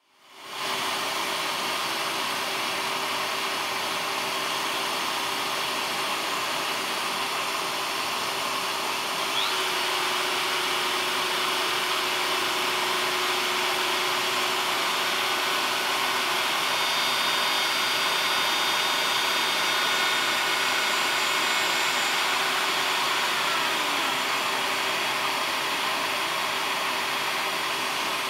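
Makita compact router starting up and running at a steady high whine while routing a splint slot into a Gibson Les Paul's mahogany neck.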